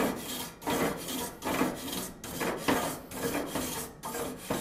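Gas grill grates being scrubbed clean, a rasping back-and-forth scrape repeated about two to three times a second.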